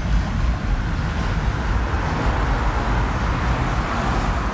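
Lowrider cars driving slowly past on the street: a steady low engine rumble, with road noise swelling in the second half as a car comes by.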